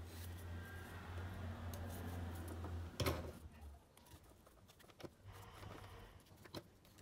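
Faint handling sounds of drinking straws and pipe cleaners being fitted together, with light rustles and a few small clicks, over a low hum that fades out about halfway through.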